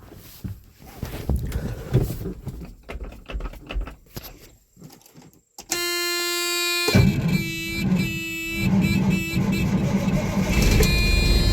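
Knocks and rattles, then a steady electronic warning tone sounds in the truck's cab. About a second later the semi truck's diesel engine cranks, catches and runs, with the tone still sounding over it.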